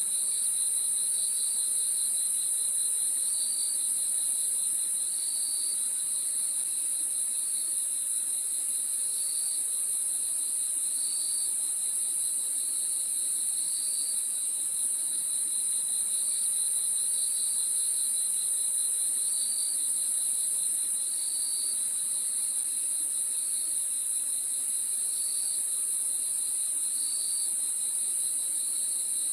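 Crickets at night: a steady, unbroken high-pitched trill, with a lower line of short chirps repeating about once every one to two seconds.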